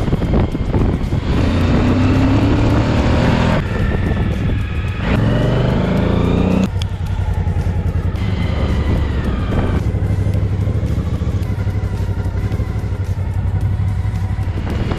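Motorcycle engine accelerating twice, its pitch rising and then dropping away abruptly each time, then running more steadily at a cruise.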